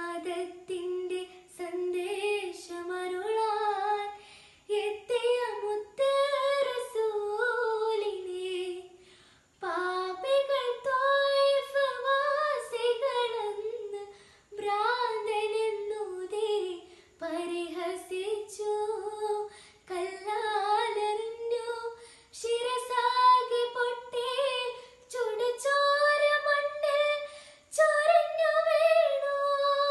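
A young girl singing a Malayalam song unaccompanied, in phrases of a few seconds with short breaths between, her held notes wavering and ornamented.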